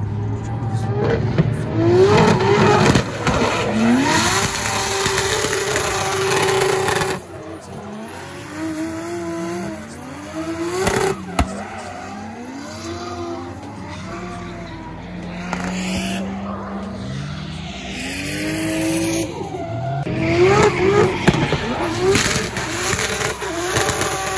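Drift cars sliding sideways: engines revved hard with the pitch repeatedly rising and falling, over the hiss of tyres squealing and skidding. Loudest at the start and again near the end, quieter in the middle stretch.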